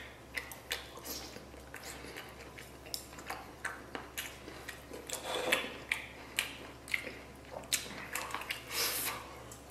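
Close-up eating sounds: a man biting and chewing braised pork rib meat off the bone, with many irregular short mouth clicks and a couple of louder bouts of chewing.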